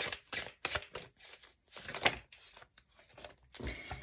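Tarot cards being shuffled by hand: an irregular run of short slaps and rustles, several a second.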